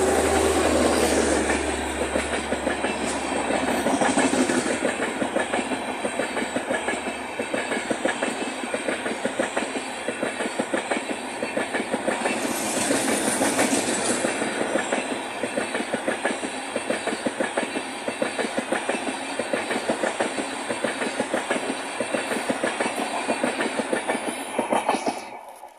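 Tejas Rajdhani Express coaches passing at speed behind a WAP-7 electric locomotive: fast, continuous clickety-clack of wheels over rail joints, with the locomotive's low hum fading in the first couple of seconds and a brief hiss about halfway through. The clatter cuts off suddenly near the end as the last coach goes by.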